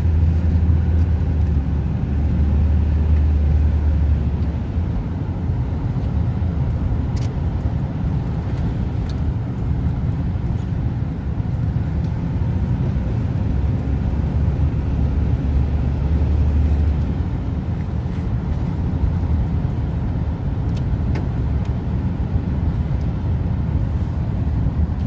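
Steady low rumble of a car's engine and tyres heard from inside the cabin while driving on a wet road, swelling a little near the start and again in the middle.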